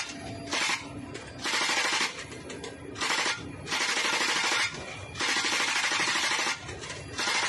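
Helicopter-mounted machine gun firing about six bursts, from short to about a second and a half long, over the steady drone of the helicopter.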